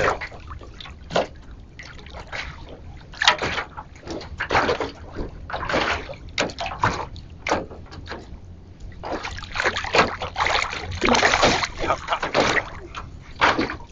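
Hooked sea bass thrashing at the surface while being played to a boat, in irregular splashes.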